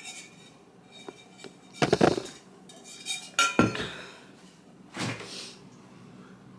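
Kitchen handling noises: three separate clunks and clinks, about two, three and a half and five seconds in, the last as a refrigerator door is pulled open.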